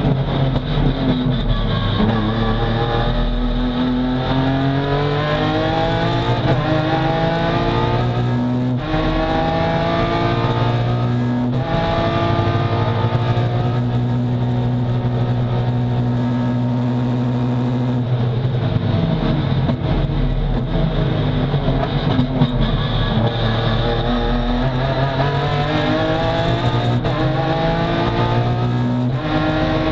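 BMW S54 3.2-litre straight-six in an E36 touring race car, heard from inside the cockpit at full throttle: the revs climb with two quick sequential-gearbox upshifts about nine and twelve seconds in, hold steady at high revs, then fall in steps under braking and downshifts before climbing again.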